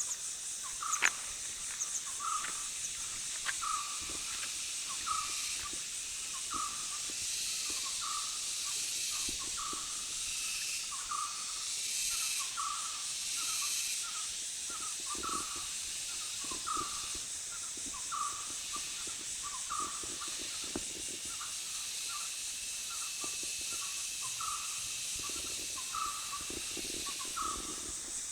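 Forest ambience: an animal, likely an owl, calls a short note over and over at an even pace, about one every three-quarters of a second, over a steady high hiss.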